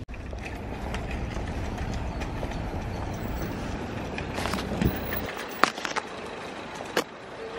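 Street ambience: a steady rumble of traffic that drops away about five seconds in, with a few footsteps clicking on the pavement.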